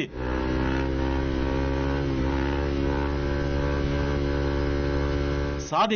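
Sport motorcycle engine running at steady revs, heard from on the bike as it rides along a motorway.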